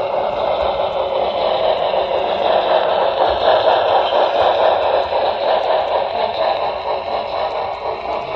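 HO scale model train rolling along the track, heard from a camera riding on the train: a steady whirring rattle of wheels on rails and the drive, a little louder in the middle.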